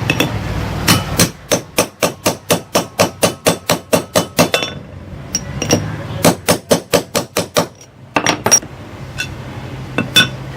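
Hammer tapping a new ball bearing onto a pedestal fan motor's shaft. It goes in quick runs of light metallic strikes, about four a second, with pauses between runs and a few single taps near the end.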